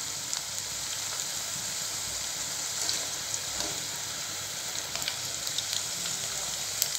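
Batter-coated ivy gourd pieces deep-frying in hot oil in a steel kadai on high flame: a steady sizzle with a few small pops, the pieces turning golden and nearly done.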